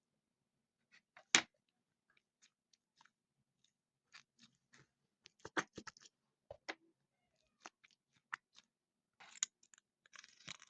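Faint, scattered clicks, taps and short crinkles of small toys and their packaging being handled, with one sharper click about a second and a half in and a few crackly bursts near the end.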